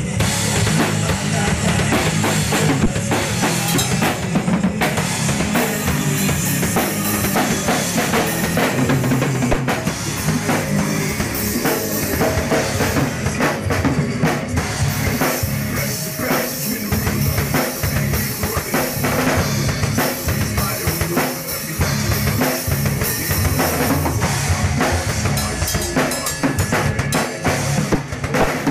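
Drum kit played continuously with a busy groove of bass drum and snare hits.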